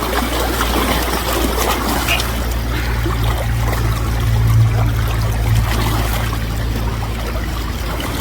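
River water rushing and trickling close by, with splashing as someone wades through it. Underneath is a low rumble that swells for a few seconds mid-way.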